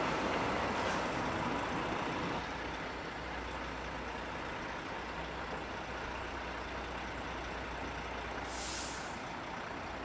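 Heavy recovery trucks' diesel engines running steadily, with a short air-brake hiss about eight and a half seconds in.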